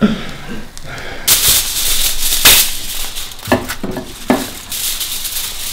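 Foil bag rustling and crinkling as it is handled, a dense crackle that starts about a second in, with a few sharper crackles.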